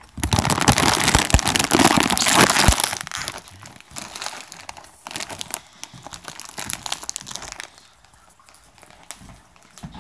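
Close rustling and crinkling of the phone being handled, its microphone rubbing against fabric. It is loud for about the first three seconds, then turns into quieter, scattered scrapes and taps.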